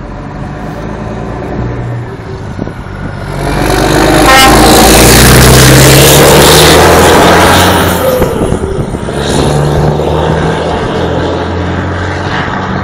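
DAF XF 105 truck's PACCAR MX inline-six diesel accelerating past through an open straight-pipe exhaust, loudest as it goes by about four seconds in, with a short horn toot. The engine note drops around eight seconds in at a gear change and climbs again as the truck drives away.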